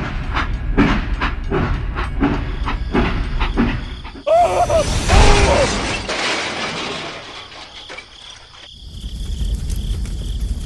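Low mechanical rumble with regular knocks. About four seconds in, a sudden loud hissing burst with gliding tones cuts in and fades over a few seconds, and the rumble returns near the end.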